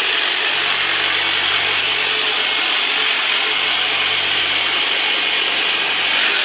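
Electric massage tool, the chiropractor's "Turbonator", running steadily as a loud motor hiss with a high whine that stops near the end, and a low hum under it for most of the time.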